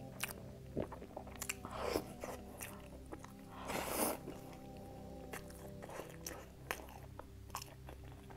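A person biting into and chewing a crusty pastry close to the microphone, with crunchy crackles and wet mouth clicks. The loudest bite comes about four seconds in.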